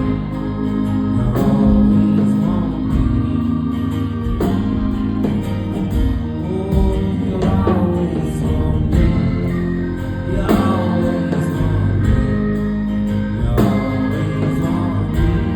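Live folk song with singing over instrumental accompaniment: sustained, held vocal notes, no clear words.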